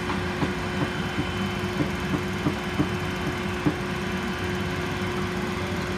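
Boom lift running with a steady engine hum as it moves its basket, with a string of light clicks over the first few seconds.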